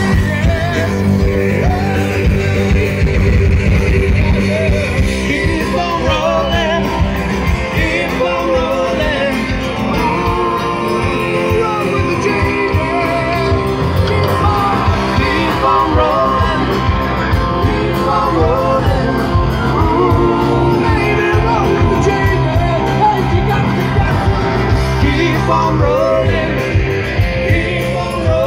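Rock music with a singer, played loud through stage PA speakers.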